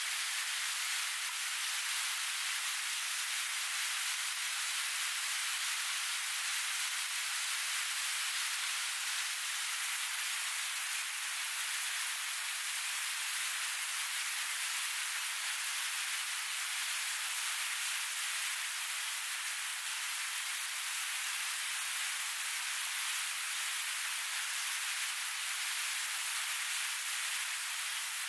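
River rapids rushing over rocks: a steady, hissing wash of whitewater that neither rises nor falls.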